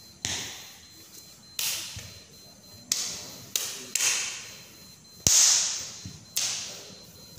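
A series of about seven sharp slaps from a silat practitioner's strikes and steps, irregularly spaced, each trailing off briefly. The loudest comes a little after five seconds in and carries a heavier thud.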